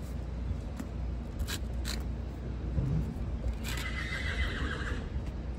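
A horse neighing once, a whinny of about a second that starts nearly four seconds in.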